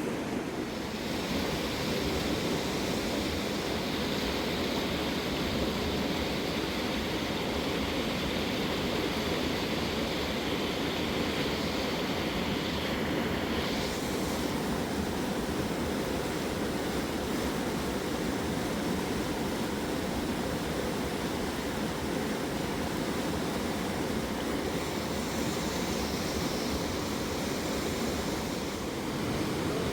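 A fast, raging mountain river rushing steadily.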